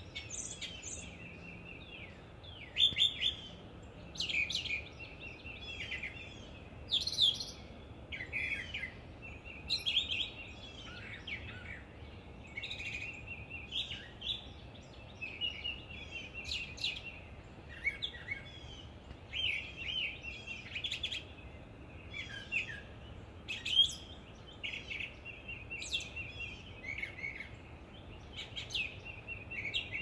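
Nightingale singing: a continuous run of varied phrases of rapid repeated notes, trills and whistles, one phrase every second or two, over a faint steady outdoor background hiss.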